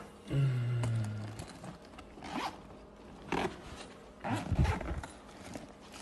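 Zipper on a fabric duffel bag being pulled open in a few short strokes.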